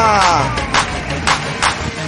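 A person's voice cries out, falling in pitch, in the first half second. Then music with a steady beat comes in.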